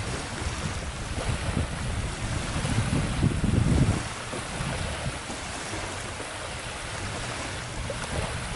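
Wind buffeting the microphone over water lapping on the river, with a stronger gust about three seconds in.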